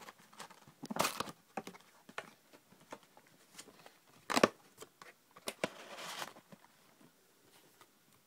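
Cardboard Pokémon trading-card booster box being opened by hand: scattered clicks and short rustles of the lid and flaps, with one sharp, loud snap about four seconds in and a longer rustle around six seconds.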